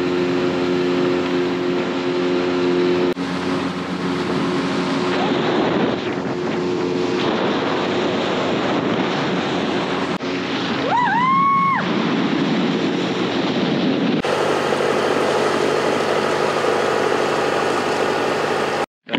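Dinghy outboard motor running at speed, with wind on the microphone and water rushing past the hull. About eleven seconds in there is one short rising-and-falling call, and from about two-thirds of the way in a different, steadier engine sound takes over until it cuts off abruptly just before the end.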